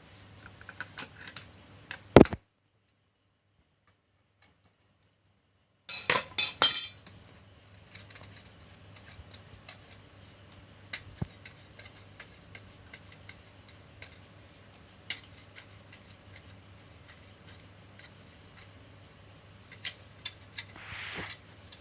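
Small metal parts and tools clinking and tapping as the clutch motor is handled. There is a loud knock about two seconds in, then a few seconds of dead silence, then a short burst of clattering followed by scattered light clicks over a faint steady hum.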